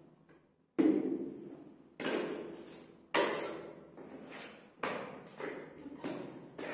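Plastering spatula scraping and tapping, putty scooped off a hand tray and spread onto the wall. About seven sharp scrapes, each fading quickly, roughly one a second.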